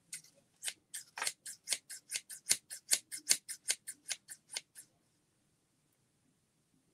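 A quick run of about twenty sharp clicks, four to five a second, that stops about five seconds in.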